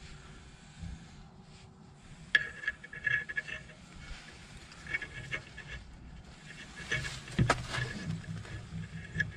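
Metal clinks and scrapes of brake caliper parts and tools being handled, some with a brief ringing, and one sharp knock about seven and a half seconds in.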